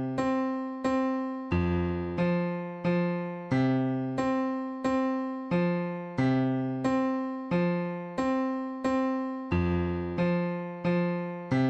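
Piano accompaniment for ballet practice, playing evenly struck chords in a steady three-count, with a deep bass note on each first beat.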